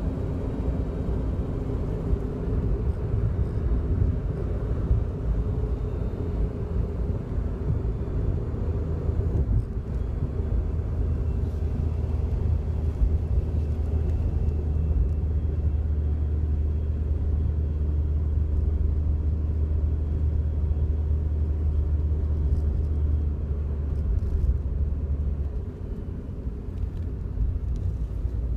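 Inside the cabin of a moving Daihatsu Wake kei car: steady engine and road rumble, with a heavier low drone from about ten seconds in that eases off near the end. Through it runs the buzzing, trembling rattle from around and below the steering wheel that sets off with each vibration of the car, an abnormal noise in a car only a month old.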